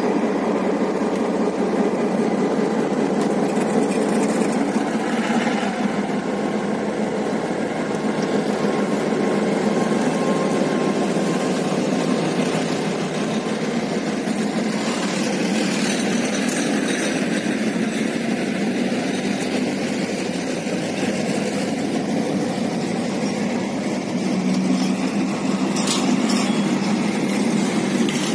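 Diesel locomotive of class 644 running steadily as it passes slowly, its engine sound mixed with the rolling of the train on the rails.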